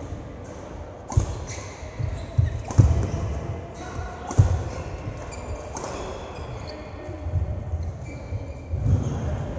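A ball being struck and bouncing during a match in a large echoing hall: about five irregular sharp thuds a second or two apart, the loudest near the start and in the middle, with short high squeaks between them.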